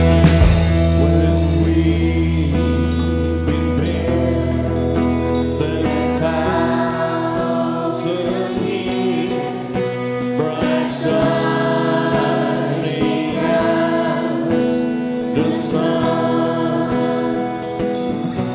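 Live church worship band playing a gospel song: drum kit, electric bass and guitars under a lead singer and backing singers. A held low bass note drops out about seven seconds in.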